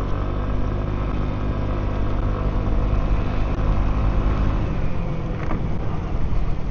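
Genuine Buddy 125 scooter's single-cylinder engine running steadily while riding, with road and wind noise, heard from inside the rider's helmet.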